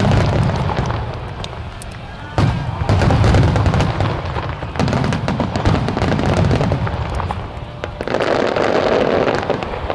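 Starmine fireworks barrage: aerial shells bursting in quick succession, deep booms rolling into crackle, with big fresh bursts about two and a half seconds in, around five seconds and near eight seconds.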